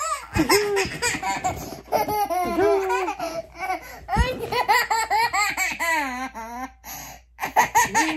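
A little girl laughing hard and squealing, over and over, with short breaks between the peals.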